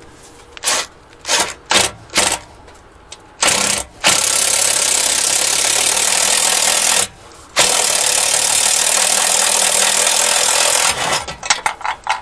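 Makita 14.4 V cordless power tool driving a 35 mm hole saw through a car's steel body panel, really loud. It starts with a few short trigger bursts, then cuts in two long steady runs with a brief stop about seven seconds in, and ends with stuttering bursts as the saw breaks through the panel.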